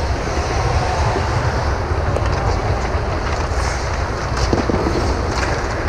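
Steady low rumble of indoor ice-rink noise picked up by the camera's microphone during a hockey game, with a few faint clicks from play on the ice.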